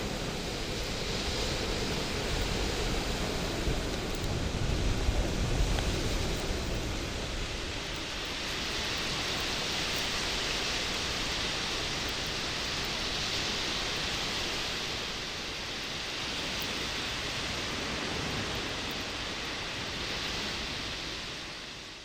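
Wood bonfire burning: a steady rush of flames with a few faint crackles, with a stronger low rumble in the first six seconds.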